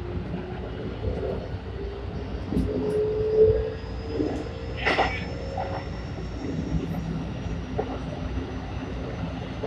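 Keikyu 1000 series electric train standing at a station platform. Its equipment keeps up a steady low rumble, under a whine that rises slowly in pitch and a single sharp clack about five seconds in.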